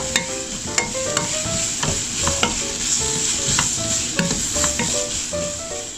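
Potato cubes, bacon and onion sizzling in oil in a frying pan as they are stir-fried with a wooden spatula, which knocks and scrapes against the pan again and again.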